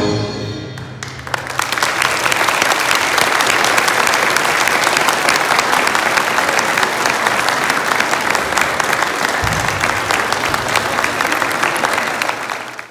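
The orchestra's last chord fades away, and about a second in the audience breaks into steady applause.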